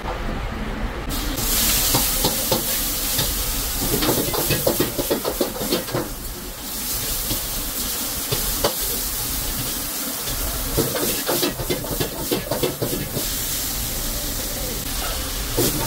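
Food sizzling in a hot steel wok on a wok range, the sizzle starting up loudly about a second in, with the metal ladle and spatula repeatedly scraping and clattering against the wok as the food is stirred.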